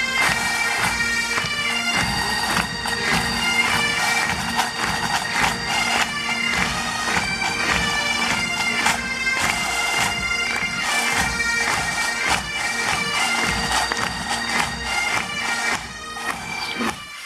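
Great Highland bagpipes playing a Scottish tune: the chanter's melody moving from note to note over a steady drone. The drones cut off just before the end.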